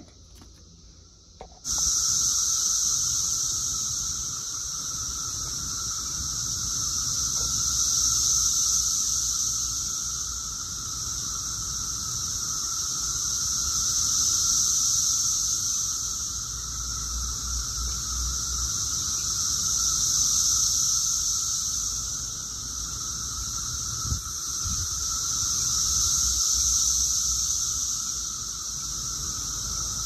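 Chorus of Brood X periodical cicadas: a dense, high buzzing with a steadier lower drone beneath it, swelling and fading in waves about every six seconds. It starts abruptly a couple of seconds in.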